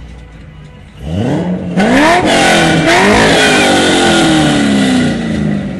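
A sports car engine accelerating hard, loud. Its pitch climbs steeply and drops back several times as it shifts up through the gears, then falls steadily away near the end.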